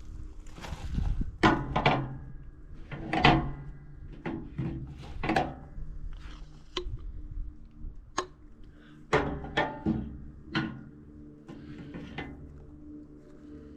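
A series of irregular knocks and clunks, about a dozen, heaviest in the first half, over a steady machine hum.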